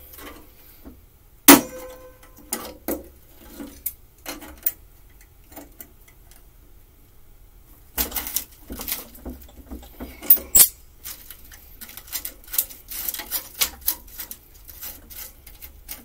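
Locking pliers clicking, clinking and scraping against a rusted steel push-mower deck as they grip and twist at a rusted-in bolt. There are a few sharp clicks early, a quiet spell, then a busy run of metal clinks and scraping from about halfway.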